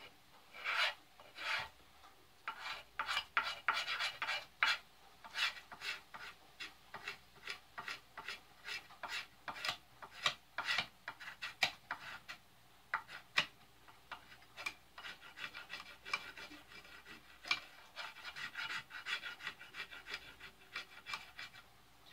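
Spine of a knife blade scraping the factory varnish off a store-bought wooden axe handle down to bare wood, in a long series of short, sharp strokes, sometimes in quick runs.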